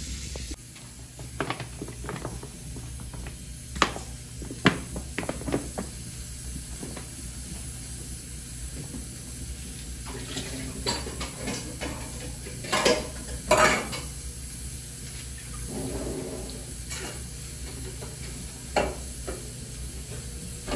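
Pork lard sizzling on a hot cast-iron griddle, with a handful of sharp clinks and knocks of metal utensils and pans. The two loudest knocks come just past the middle.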